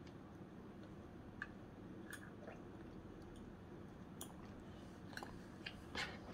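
A child chewing food, with scattered faint clicks and taps of plastic chopsticks against a plastic bento box that come closer together near the end.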